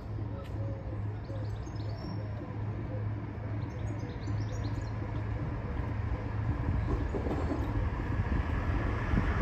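Sulzer six-cylinder diesel engine of Class 25 locomotive D7659 running with a steady low hum as the locomotive draws nearer, growing louder over the last few seconds. Birds chirp over it in the first half.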